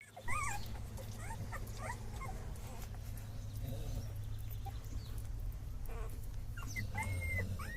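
A litter of puppies whimpering: several short, high-pitched whines in the first couple of seconds, then longer drawn-out whines near the end, over a steady low hum.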